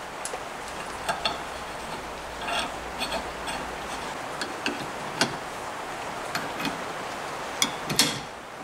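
Irregular metal clicks and clinks of hand tools and small parts being handled at a moped engine on a workbench, with a louder pair of clanks near the end as a wrench and bar are set onto the flywheel.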